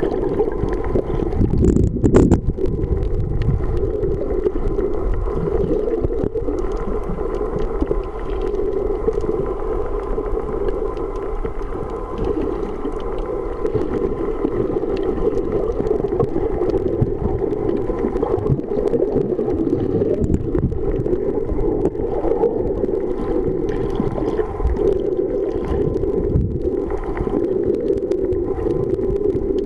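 Muffled underwater noise from a camera submerged in its housing, a steady dull rushing with a low rumble. There is a brief sharp knock about two seconds in.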